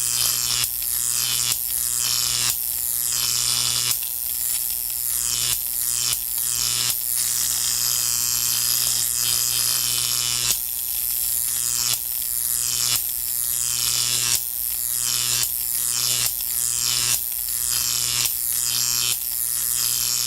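Studio sound effect of a small buzzing motor, pulsing in a regular beat a little slower than once a second over a steady low hum.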